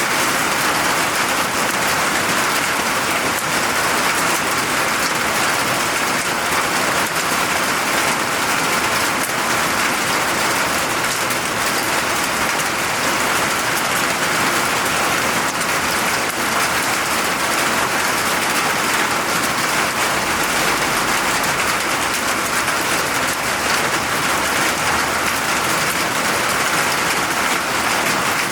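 Steady rain falling and pattering on surfaces, an even dense hiss of many drops.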